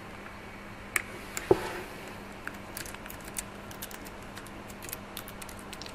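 Typing on a computer keyboard: a couple of separate clicks, then a quick run of light keystrokes over the last few seconds, over a faint steady hum.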